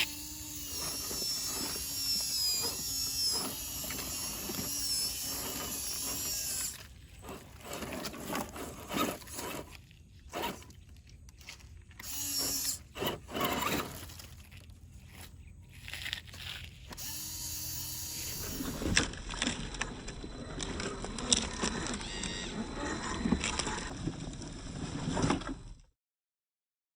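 Electric motors and gearboxes of radio-controlled 4x4 crawler trucks whining, high and wavering as the throttle changes, running in stop-start bursts with clicks and knocks of the trucks on the terrain. The sound cuts off abruptly near the end.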